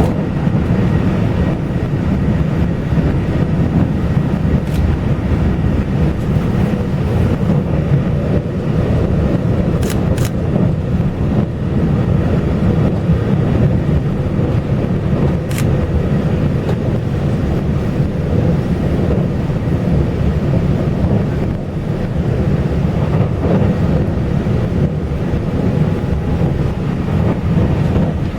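Passenger train running along the line: a steady low rumble of wheels on rails, with a few brief sharp clicks along the way.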